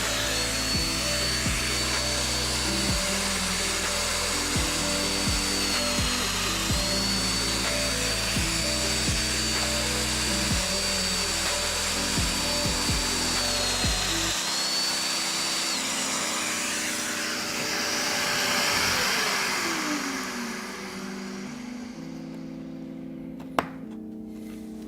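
Festool DF 500 Domino joiner running at full speed with a high steady whine that sags twice, about six and fourteen seconds in, as it plunges into the wood to cut mortises. It is then switched off and winds down with a falling pitch, and a single sharp click follows near the end.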